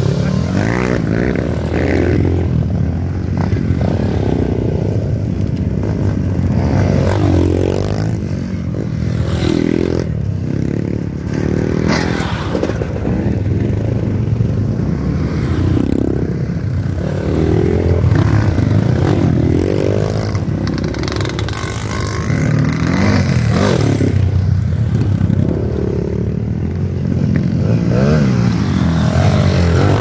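A string of dirt bikes riding past one after another, engines revving, each one's note rising and falling in pitch as it goes by.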